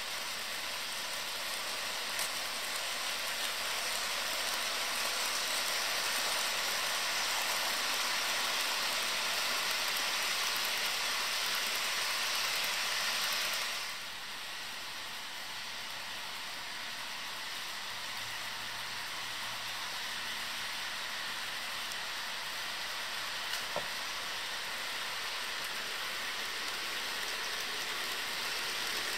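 HO scale model freight trains rolling along the track, a steady hiss of wheels on rails and running motors. The sound drops slightly and changes about halfway through as the scene switches to another passing train.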